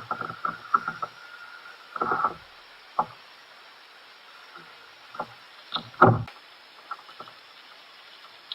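Scattered knocks and thumps from handling in a kayak, dulled by the action camera's waterproof case. There is a short cluster about two seconds in and the loudest thump about six seconds in.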